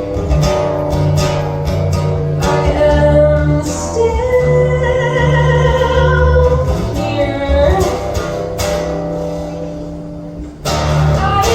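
Live song performance: a singer over guitar accompaniment with a full low end. Near the end the music tails off briefly, then comes back in loudly.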